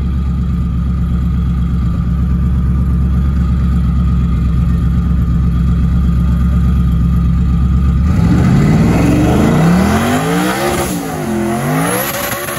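Ford Mustang engine running with a steady low drone, then from about eight seconds in revving up and down several times as it spins its rear tyres in a burnout, with tyre noise rising under the revs.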